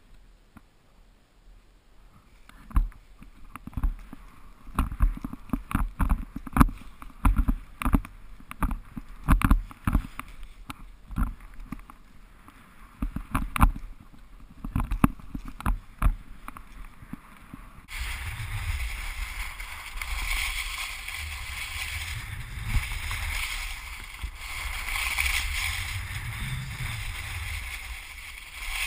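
Action-camera sound of skiing: for about the first two-thirds, irregular thumps and knocks as the skis and camera jolt through soft snow. Then a sudden change to a steady rushing of wind on the microphone and skis sliding over the snow, with a low rumble.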